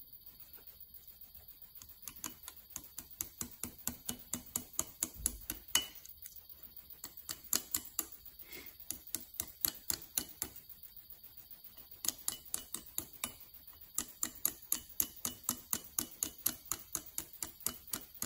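Small hammer tapping lightly and quickly, about four or five taps a second in runs with short pauses, driving a copper guard onto a miniature sword held in pliers against a steel block.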